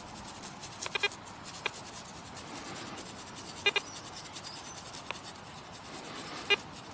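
Toothbrush bristles scrubbing dirt off a small cannonball-like ball in a steady dry rubbing. A few short sharp blips stand out about a second in, midway and near the end.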